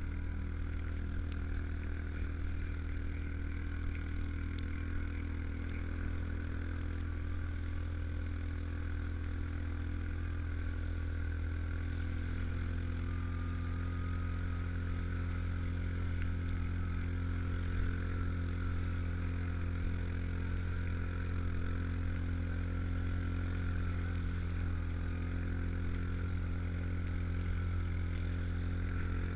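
Yamaha Rhino 700 side-by-side on a Camoplast Tatu 4S track kit, its single-cylinder engine running steadily as it drives along at an even pace, the engine note shifting slightly about twelve seconds in.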